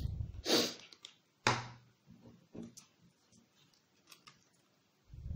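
Glue stick rubbed over card on a wooden table, a low scrubbing rumble, broken by a sharp click about a second and a half in and a few lighter ticks as card is handled; the rubbing starts again near the end.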